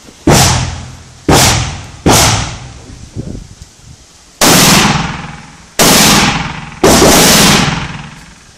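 Six single shots from a semi-automatic .223 rifle (Heckler & Koch MR223), fired at uneven intervals, three in the first two seconds and three more about a second apart later. Each shot rings on in a long fading echo.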